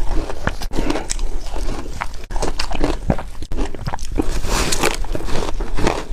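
Close-up crunching and chewing of refrozen shaved ice chunks, a dense run of irregular sharp cracks and crackles as the ice breaks between the teeth.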